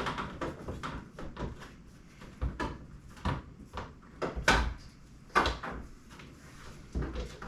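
A string of sharp plastic knocks and clunks, the loudest about halfway through, as an aftermarket rear-window louvre is tugged and pressed against its mounting clips while being worked loose.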